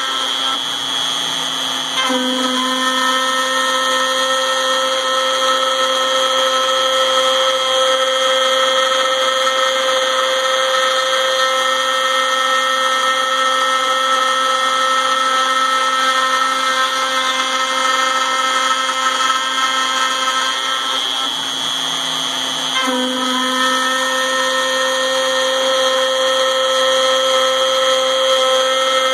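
Router spindle of a MillRight Mega V CNC machine dry-cutting an aluminum plate: a loud, steady, high-pitched motor whine mixed with the end mill chattering through the metal. The sound shifts briefly twice, about two seconds in and again near the three-quarter mark, then settles back to the same steady cut.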